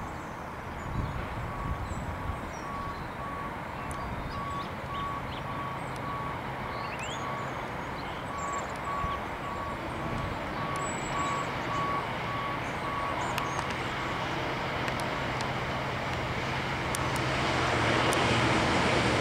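Class 66 diesel locomotive approaching at the head of a long freight train of box wagons, its engine hum growing louder over the last few seconds. A high electronic beep repeats about twice a second, stopping about 14 seconds in.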